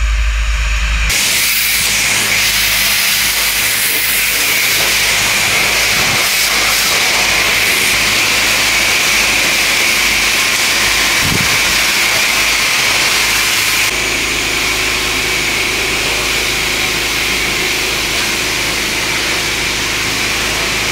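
Car-wash high-pressure spray wand blasting water onto a sprint car: a loud, steady hiss. For about the first second a deep hum sits under it before giving way to the hiss alone.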